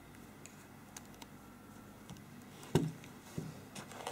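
Handling noise from a smartphone and its cardboard box: faint scattered clicks and taps, then a sharp knock about two-thirds of the way in as the phone is set down on the table, followed by a few lighter clicks near the end.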